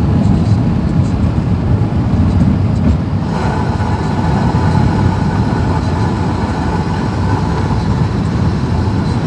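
Airbus A380 cabin noise heard from a window seat: a steady, loud rumble of engines and airflow, with a whining engine tone setting in about three seconds in.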